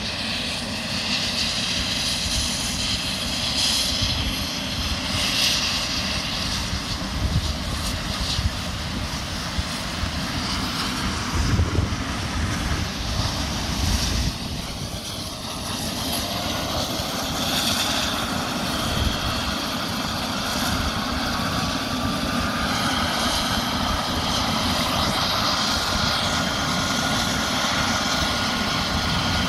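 Eurocopter EC135 air ambulance helicopter starting up: a turbine whine rises steadily in pitch from about halfway through as the engine spools up, then holds near the end, over low, uneven noise.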